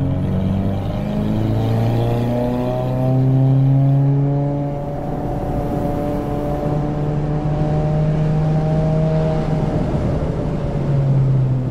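2024 Subaru WRX's turbocharged 2.4-litre flat-four accelerating on track, its engine note climbing in pitch with a step about a second in, loudest around four seconds in, and falling off near the end.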